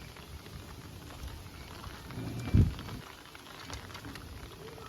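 Steady rain falling, with one loud low thump about two and a half seconds in.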